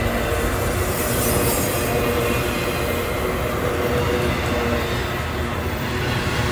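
Railway train passing close by, with the steady rumble and rattle of its wheels on the rails.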